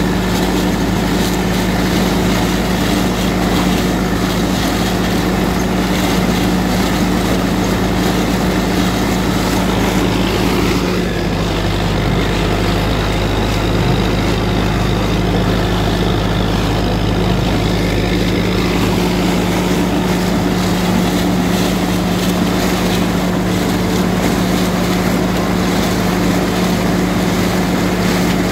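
Diesel engine of an IMT 577 DV tractor running steadily under load while powering a SIP Tornado 80 trailed corn picker through standing maize, with the picker's machinery noise mixed in. The engine note shifts briefly about eleven seconds in.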